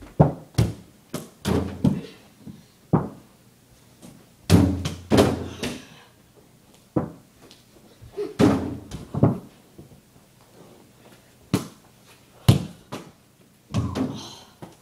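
Basketballs being dunked on a portable hoop: a dozen or so sharp thuds and bangs at uneven intervals, from balls bouncing and the rim and backboard being hit, some with a short ringing rattle after.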